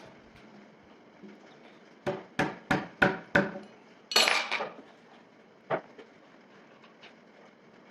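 Metal objects striking one another: five sharp knocks at about three a second, then a brief metallic clatter, and one more knock a little later.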